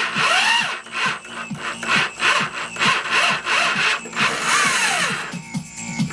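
Power drill driving a homemade wire-stripping machine, running with a whirring, scraping noise as insulated copper wire is pulled through, then stopping a little after five seconds. Music plays underneath.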